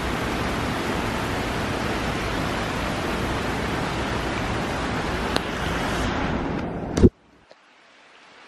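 Heavy rain pouring down in a steady hiss. It turns duller near the end, then a sharp knock, and the sound cuts off almost to silence.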